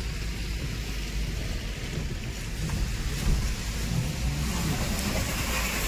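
Road noise inside a moving car on a rain-soaked road: a steady low rumble with an even hiss of tyres on wet tarmac and rain.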